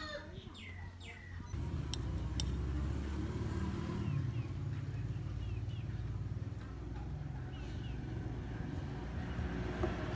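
Small birds chirping in short falling notes over outdoor ambience; about a second and a half in, a steady low rumble starts, like a motor running, and carries on as the loudest sound.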